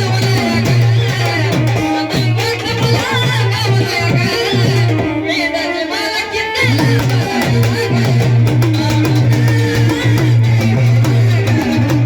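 A song being sung over instrumental accompaniment with drums, the voice wavering in ornamented runs. There is a brief dip in the backing about halfway through.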